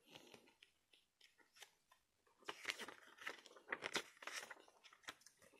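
Pages of a thick paper booklet being turned by hand: faint paper rustles and flicks, louder from about two and a half seconds in.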